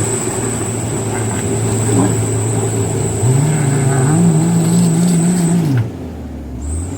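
Mitsubishi Canter HD truck's diesel engine running under heavy load. The revs rise about three seconds in, hold, then fall away near the end as the loaded truck struggles to pull up the slippery mud track.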